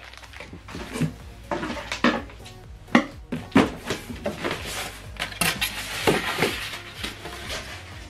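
Cardboard box and packaging being handled during an unboxing: irregular knocks, taps and rustles as flaps are moved and packed items are lifted out.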